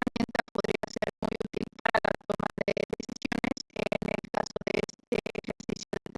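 Music, chopped into many short choppy fragments with abrupt gaps between them.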